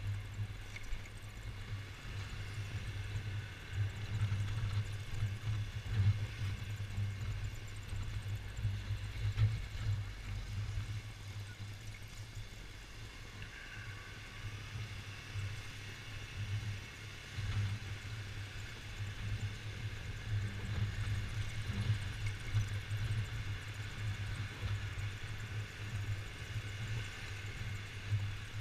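Yamaha XMAX 250 scooter's single-cylinder four-stroke engine running steadily while riding at low speed: a low, even drone that swells and eases a little.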